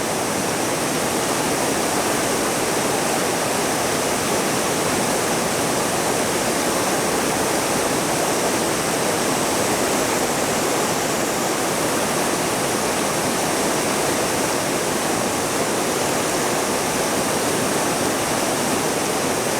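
Waterfall and river rapids rushing, a steady, loud, even roar of falling and churning water with no let-up.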